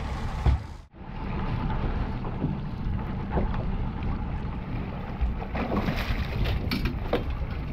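Steady wind and water noise on a small open fishing boat. Near the end come sharp splashes and knocks as a dorado (mahi-mahi) is hauled thrashing out of the water alongside.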